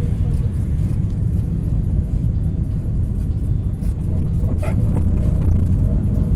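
Steady low rumble of a route minibus driving, heard from inside its cabin: engine and road noise, with one brief knock or rattle a little over four and a half seconds in.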